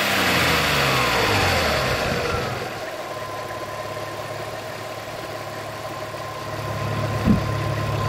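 Audi A6 2.7 biturbo V6 engine with a straight-through exhaust, its revs falling back after a blip and settling to idle after about two and a half seconds, then idling steadily with a faint whine. A short thump comes about seven seconds in.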